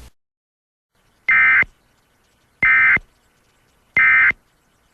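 Emergency Alert System end-of-message data bursts: three short, identical digital buzzes about 1.3 seconds apart, marking the end of the alert.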